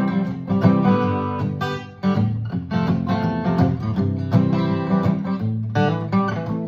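Acoustic guitar strummed in a steady rhythm, the chords ringing between strokes.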